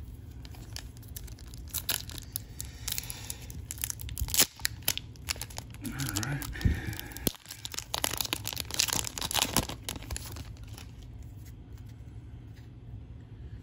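The foil wrapper of an Upper Deck MVP hockey-card pack crinkles and tears as it is ripped open. Irregular crackles and sharp rips are loudest about four and a half seconds in and again between eight and ten seconds.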